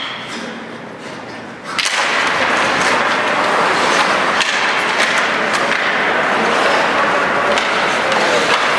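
Ice hockey play: skate blades scraping the ice, with sticks and the puck knocking sharply and often. It gets much louder suddenly a little under two seconds in.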